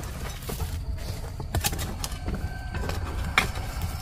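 Scattered knocks and scrapes at an irregular pace, with one louder knock about three and a half seconds in, over a steady low rumble.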